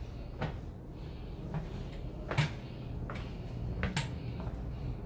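A scattering of light, sharp clicks and knocks, about eight in five seconds, the loudest about two and a half and four seconds in, over a faint steady background hum.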